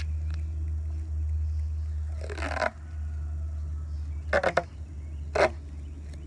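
Handling noises as a roll of duct tape is picked up and handled: a short rustle a couple of seconds in, then three quick scrapes near the end, over a steady low hum.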